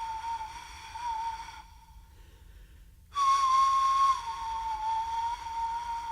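Two long, high held notes on a flute-like wind instrument, part of the soundtrack music, with a pause of about a second and a half between them. Each note wavers slightly and settles a little lower in pitch.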